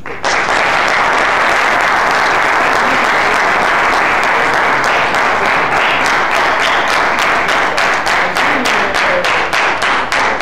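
Audience applauding, starting suddenly. About halfway through, the clapping falls into a steady rhythmic beat of roughly two to three claps a second.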